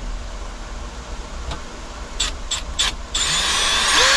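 Cordless drill running under load, starting about three seconds in after a few light clicks; its motor whine rises in pitch and holds steady near the end as it drives the fastener home.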